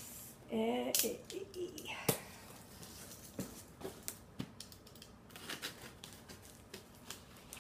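A cardboard shipping box being cut and opened by hand: a run of irregular clicks, scrapes and taps from the cardboard and packing tape, with a brief murmur of voice about a second in.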